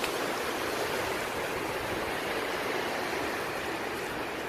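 Steady rush of sea waves washing over the shore.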